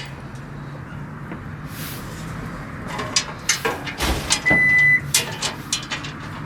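Knocks and clanks as the aluminum skid plate is pushed up and worked into place under the vehicle, coming thick in the second half, over a steady low hum. A short high electronic beep sounds about four and a half seconds in.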